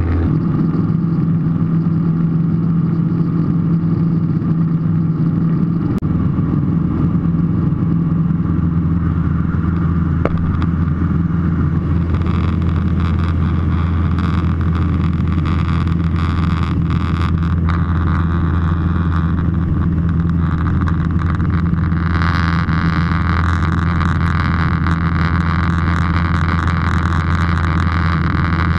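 Light aircraft's piston engine and propeller droning steadily in cruise, heard inside the cockpit. A brighter rushing hiss joins about two-thirds of the way through.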